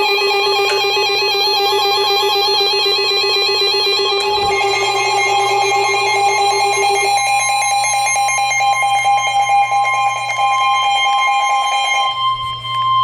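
Emergency Alert System attention signal: a loud, steady alarm of several tones sounding together. The lowest tone drops out about seven seconds in, and near the end a single tone holds on alone.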